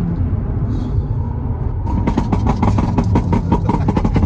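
BMW M3 F80's twin-turbo straight-six running through an equal-length exhaust, with a steady low rumble. From about two seconds in, a rapid run of sharp crackles comes through the exhaust.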